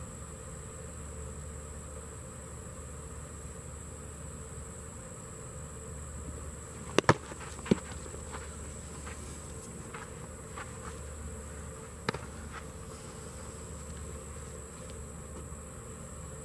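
Steady high-pitched drone of insects, with sharp smacks of a baseball into a catcher's mitt: two close together and a third just after, about seven seconds in, and a lighter one about twelve seconds in.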